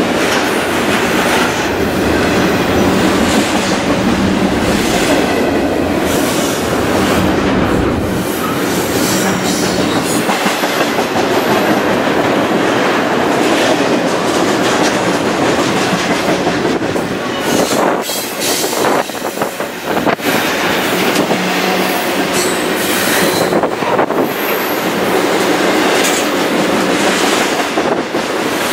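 Double-stack container freight cars rolling past at close range: steady loud wheel-on-rail noise with clicking over rail joints, and a few brief high wheel squeals near the end.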